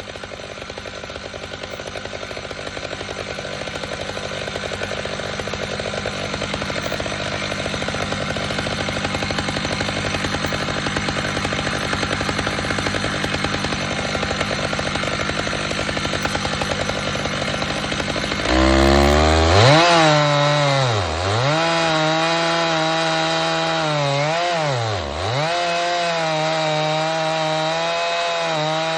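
Chainsaw on an Alaskan chainsaw mill running steadily under load as it cuts along a large maple round. About two-thirds of the way in, the engine note changes abruptly and becomes cleaner and louder, then dips in pitch twice.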